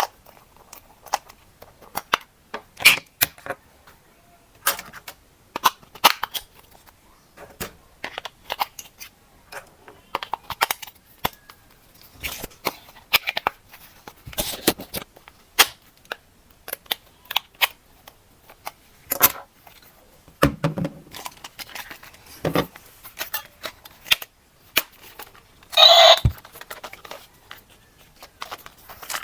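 Hands handling plastic toy parts and packaging: irregular clicks, snaps and taps, with a dull knock a little after twenty seconds and a louder crinkling rustle about twenty-six seconds in.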